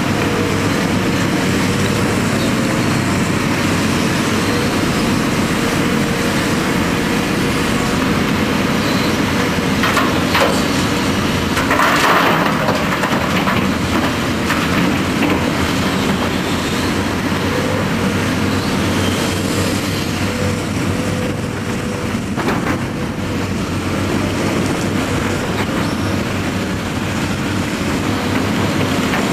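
Volvo EC450 hydraulic excavator's diesel engine running steadily under load as it digs and swings, with a steady whine over the rumble. Partway through, a load of earth and stones pours from the bucket into the steel body of a dump truck with a rattling crash.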